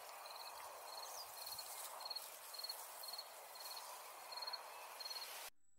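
An insect chirping at an even pace, about two short, high-pitched pulsed chirps a second, over a faint steady outdoor hiss. The sound cuts off abruptly near the end.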